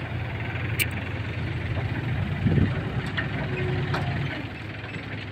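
Mahindra tractor's diesel engine running steadily at low revs as it reverses a trolley loaded with clay soil. A dull thump comes about halfway through, with a few sharp clicks around it, and the engine sound eases slightly near the end.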